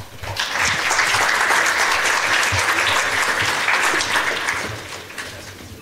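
Audience applauding: dense clapping that starts at once, holds steady for about four seconds, then dies away.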